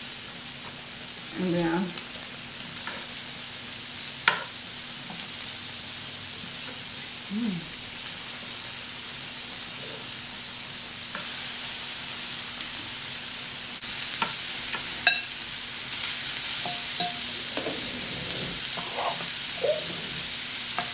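Lobster, shrimp, scallops and beef sizzling on the grill plate of an electric hotpot, a steady hiss that grows louder about two-thirds of the way through. A few sharp clicks of metal tongs on the pan.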